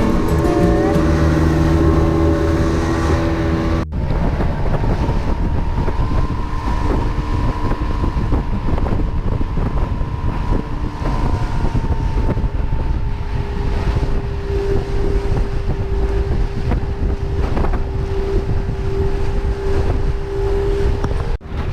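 Motorboat engine running steadily under wind buffeting the microphone, with a steady whine in the sound.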